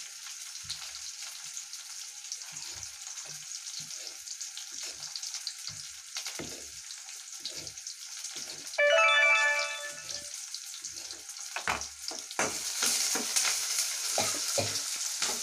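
Onions, mustard seeds, garlic and curry leaves sizzling in hot oil in a kadai, with a spoon knocking and scraping as they are stirred; the sizzle grows louder about twelve seconds in. About nine seconds in, a loud tone with several overtones sounds for about a second and a half.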